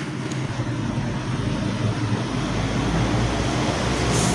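Steady background rumble and hiss with a low hum underneath, growing slightly louder, like traffic or machinery noise.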